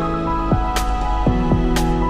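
Background music: held tones over a steady beat, a low drum thump that falls in pitch and a sharp hit each coming about once a second.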